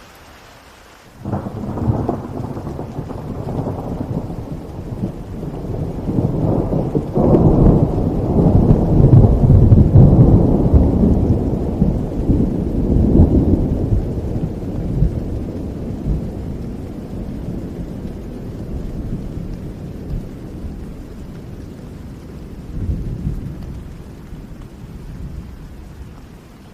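Thunder over steady rain. A low rumble breaks in suddenly about a second in, grows to its loudest about ten seconds in, then fades away slowly, swelling once more briefly near the end, while the rain hiss carries on underneath.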